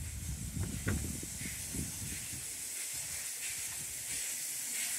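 Steady hiss of steam escaping from a narrow gauge steam locomotive, with low rumbling in the first couple of seconds.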